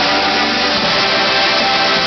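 Marching band playing loud music, many instruments holding sustained notes together, with the low notes changing about a second in.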